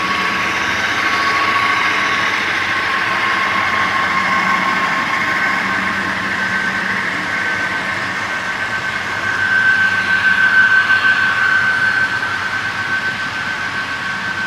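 HO scale model freight train running past on the layout: a steady mechanical hum with a held whine, getting louder about nine seconds in and easing off again near the end.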